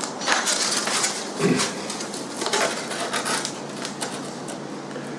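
Depron foam sheet being worked by hand, with irregular scratching and crackling as it is scored and bent, loudest in the first three seconds or so.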